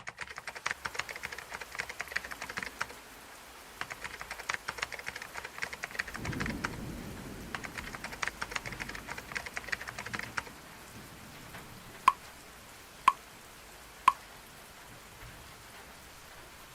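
Computer keyboard typing: rapid key clicks in three bursts over the first ten seconds or so, then three short electronic beeps about a second apart, over a steady hiss of rain white noise.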